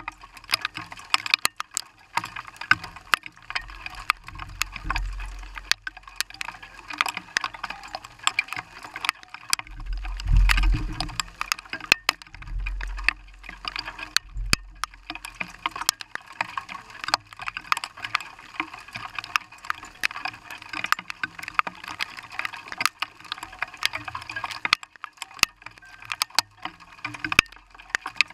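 Rain and sleet striking a vehicle's windshield and roof, heard from inside: a dense, irregular patter of sharp ticks, with a few low rumbles around the middle.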